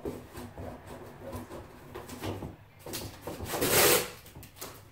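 Cardboard shipping box being opened by hand: small knocks and rustles of handling, with a louder, longer noisy stretch of under a second about three and a half seconds in.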